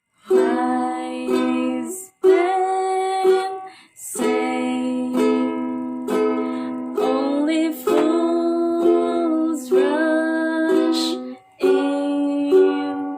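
Ukulele music played in phrases of about two seconds with short breaks between them, with long held and gliding melody notes.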